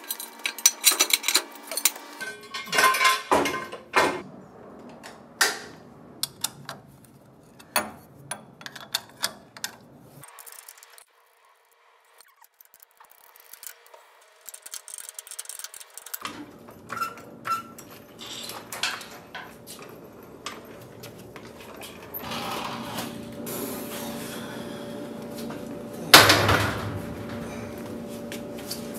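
Hand tools and metal parts of a VW Beetle chassis and transaxle clinking and knocking during garage work, with one loud clank about 26 seconds in. A steady hum runs under the second half.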